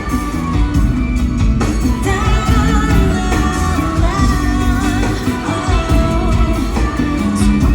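Live pop music heard through an audience recording: a woman singing a wavering melody over a loud band accompaniment.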